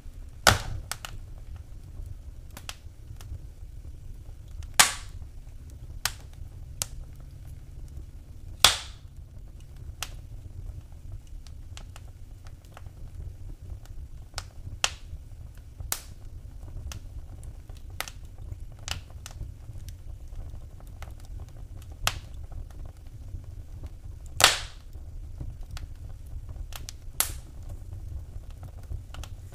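Wood fire burning in a fireplace, crackling with irregular sharp pops and snaps over a low steady rumble of the flames; a few pops are much louder than the rest.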